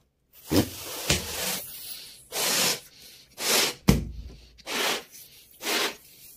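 Rubber balloon being inflated in short rhythmic puffs of air, about one a second, with a sharp knock about four seconds in.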